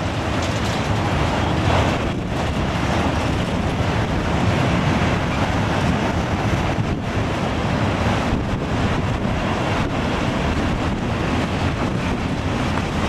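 Freight train of double-deck car-carrier wagons loaded with cars rolling past, a steady rumble of wheels on rail, mixed with wind buffeting the microphone.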